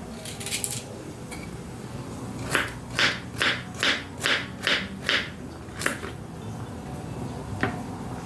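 Knife chopping carrots on a cutting board: a run of about eight crisp chops, a little over two a second, through the middle, with a few single cuts before and after.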